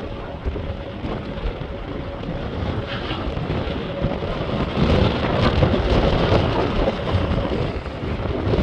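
Strong storm wind buffeting the microphone: a dense low rumble with rain mixed in, growing louder about five seconds in.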